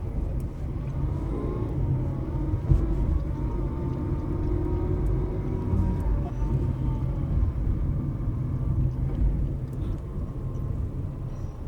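2013 Nissan Versa running with a steady low rumble and a faint whine that rises and falls between about one and six seconds in. The owner puts the whine on acceleration down to a CVT problem.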